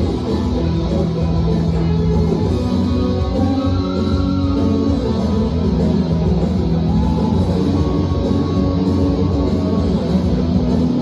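Instrumental rock music led by guitar, with held melody notes over a dense, steady low end: an instrumental break in the song's backing track.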